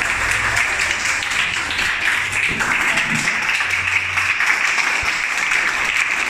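A room full of schoolchildren applauding, many hands clapping at once in a steady patter.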